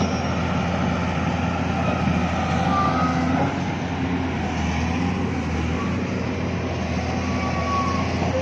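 Excavator's diesel engine running steadily under work, a constant low hum with a few brief, faint squeaks.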